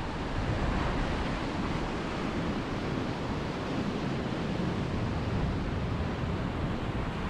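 Ocean surf washing steadily onto a rocky sandy shore, with wind rumbling on the microphone.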